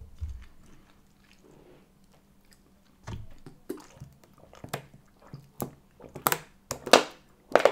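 Gulps of drink from a plastic bottle, one roughly every second, after a few seconds of quiet chewing.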